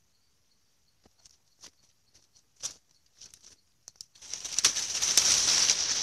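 Dry leaves and twigs crackling now and then as a heap of cut branches is handled. About four seconds in, a loud continuous rustling and scraping starts as the heap of dry leafy branches is dragged over the grass.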